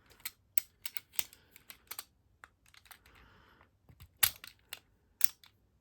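Irregular sharp clicks and clacks of a cheap lock's small plastic and metal parts being pried and worked apart by hand, the loudest click about four seconds in.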